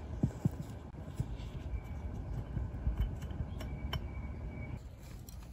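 Hex key turning a small set screw into the slider bar of a cast-iron lathe apron: scattered light metallic clicks and clinks as the screw is run in by hand.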